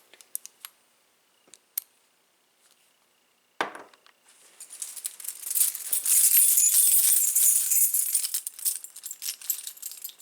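Keys and a metal padlock handled in the hand, jingling and rattling: a sharp click a little over three and a half seconds in, then steady metallic jangling from about four seconds in.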